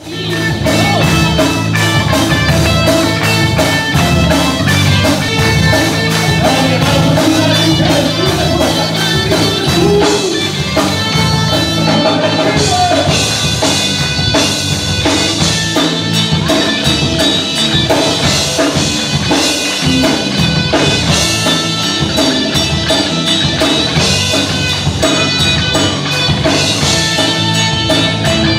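A live band playing worship music with a steady beat, drums and guitar, with keyboard.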